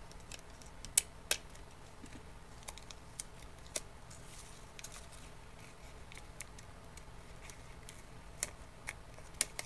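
Hands taping a paper strip with a desk tape dispenser: a sharp click about a second in and another just after, then faint scattered ticks and paper rustles as the tape is pressed down, with a few more clicks near the end.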